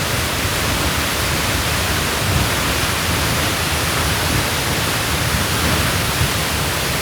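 Wind buffeting the microphone: a steady loud rush with an uneven low rumble.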